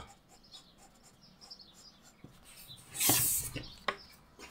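Faint squeaks of a blender marker tip rubbing on card stock, then about three seconds in a short papery rustle as the card is slid and lifted off the table, with a single sharp tap just after.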